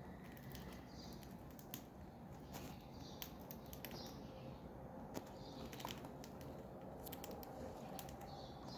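Birds feeding, faint: short high chirps every second or two over many scattered sharp clicks.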